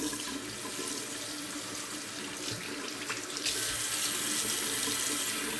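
Water running steadily from a sink tap, the stream growing louder and brighter about three and a half seconds in.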